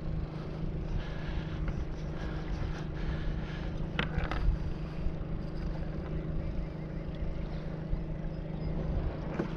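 Wind rumbling on the microphone with water noise around a kayak, under a steady low hum. There is one sharp knock about four seconds in.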